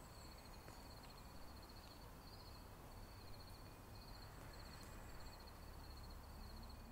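Faint outdoor ambience, close to silence: a low rumble with a high, thin trill that repeats in short runs about once a second.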